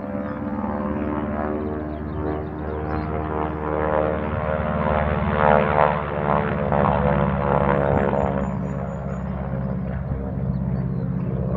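Propeller aircraft flying past, its engine and propeller droning as a steady buzzing tone that grows loudest about halfway through, then eases a little.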